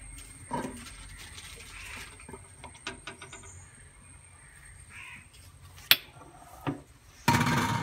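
Crows cawing a few times in the background, a light clink as a stainless steel pot lid is lifted, and a loud clatter with a brief ring near the end.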